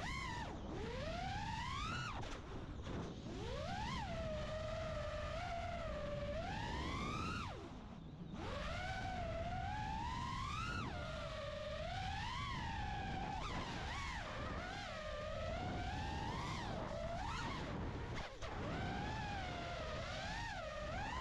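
A 5-inch FPV quadcopter's four EMAX ECO II 2207 1900kv brushless motors whining, the pitch sweeping up and down with the throttle as it flips and dives, with a brief dip when the throttle is cut about eight seconds in. Rushing air noise runs underneath.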